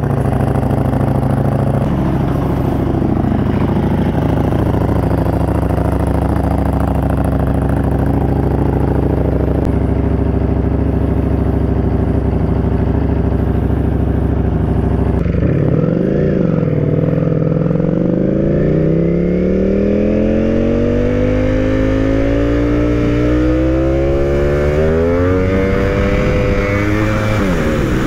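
Ducati Panigale engine under way, first at a steady engine speed. About halfway it briefly dips and picks up, then the pitch rises slowly and steadily for many seconds as the bike accelerates, with a sharp drop near the end.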